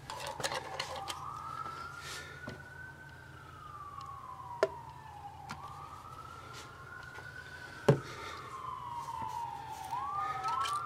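Emergency vehicle siren wailing, its pitch slowly rising and falling about every five seconds, with a second siren tone overlapping it near the end. Two sharp knocks stand out, about halfway and three-quarters of the way in.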